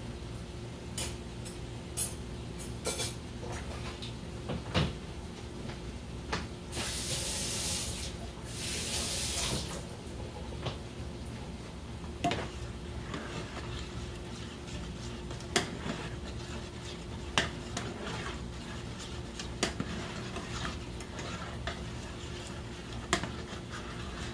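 Plastic spoon knocking and scraping against a speckled enamel pot while stirring a thick cream sauce, in scattered clacks. Two short stretches of hiss come about seven and nine seconds in, over a faint steady hum.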